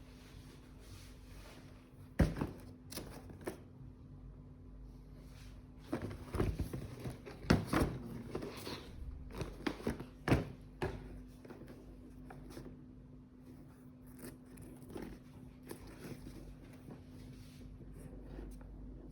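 Handling of sneakers and their packaging: scattered soft knocks and clicks, clustered about a third of the way in, over a faint steady hum.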